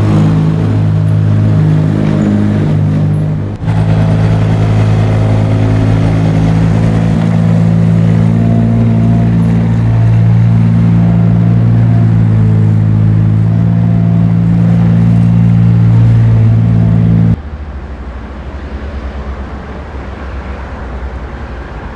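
An engine running steadily with a low pitched hum. It breaks off sharply for a moment about three and a half seconds in, then drops suddenly near the end to a quieter, rougher rumble.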